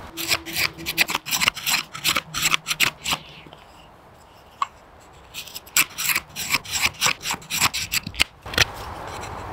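Knife blade shaving wood off a stick in a quick series of scraping strokes, with a pause of about two seconds in the middle.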